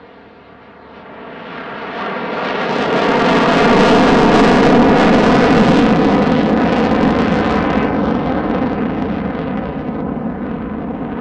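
F-16C fighter jet flying past in a slow, high angle-of-attack pass: its jet engine noise builds to a loud peak and then slowly fades.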